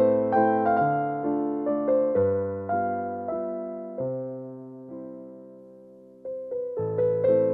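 Background music: a gentle solo piano melody over chords. Near the middle a chord is left to die away for about two seconds before the playing picks up again.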